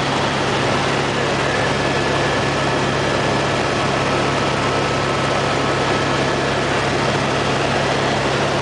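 Helicopter cabin noise in flight: a steady drone of the turbine engine and rotor with rushing air, and a faint steady whine over it.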